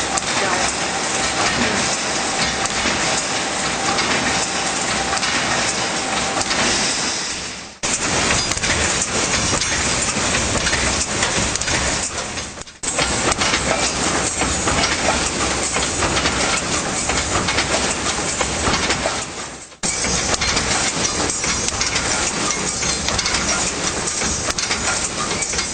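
Fully automatic welded wire mesh machine running: a dense, steady clatter with hissing. It fades and starts again abruptly three times.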